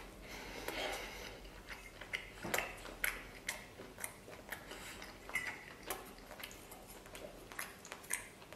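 Eating sounds: chewing with scattered soft clicks and light taps of chopsticks against a stainless steel rice bowl and pot, irregular and quiet.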